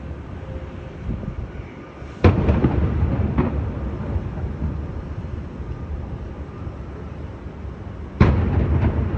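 Aerial fireworks shells bursting: two loud booms about six seconds apart, each trailing off in a rolling rumble, with a smaller crack shortly after the first.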